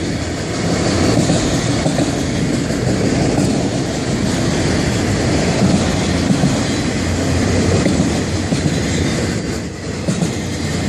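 Freight cars of a Florida East Coast Railway train rolling past close by, a steady loud noise of steel wheels on the rails, easing briefly near the end.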